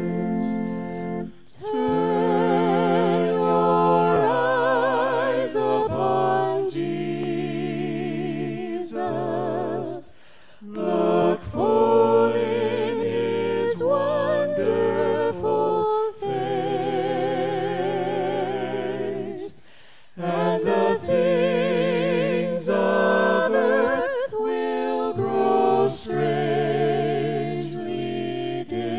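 Worship singing: several voices singing a song with vibrato, in phrases separated by short breaks.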